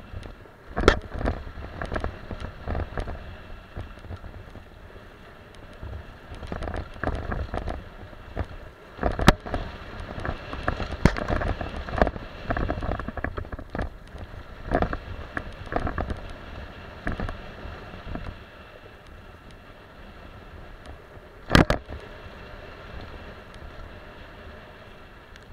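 A mountain bike is ridden fast down a rough dirt trail: the tyres rumble over the ground while the chain and frame rattle and clatter. There are sharp knocks from hard hits, the loudest about a second in, around nine seconds and near twenty-two seconds. Wind rushes over the microphone.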